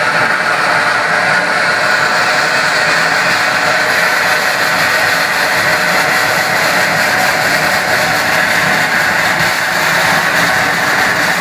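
Bong fai dok fountain firework burning, throwing up sparks with a loud, steady rushing hiss.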